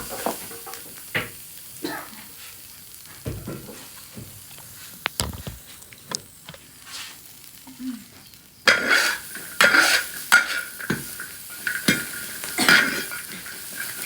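Spatula knocking and scraping in a wok, then, about nine seconds in, a sudden loud sizzle of frying that carries on under repeated stirring strokes: chilies frying in hot oil for tiger-skin peppers.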